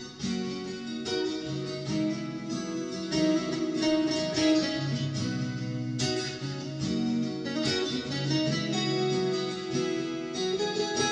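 Steel-string acoustic guitar played solo, picked chords with the notes ringing on.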